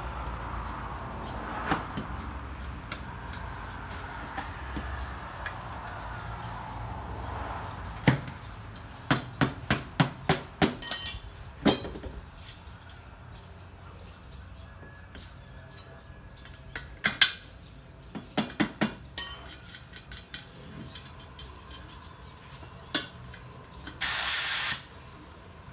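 Sharp metallic knocks and clicks at a hydraulic shop press during work on a motorcycle crankshaft and connecting rod: a quick run of about a dozen a third of the way in, another cluster a little past the middle. Near the end comes a burst of hissing air lasting about a second and a half.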